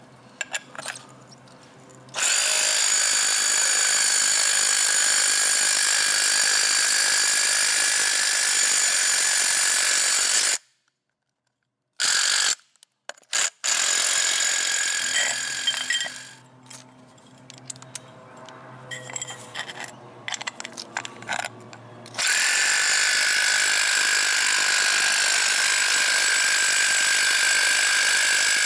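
Cordless impact driver running a bolt into the untapped mounting holes of a mower blade spindle housing, so the bolt cuts its own threads. Two long steady runs with a high whine, about eight and six seconds long. Between them are a brief drop-out, a few short bursts of the driver, and clicks of handling.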